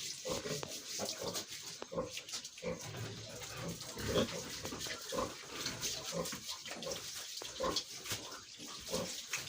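Pig grunting steadily in short low grunts, about two a second, with faint water splashing from washing the pen.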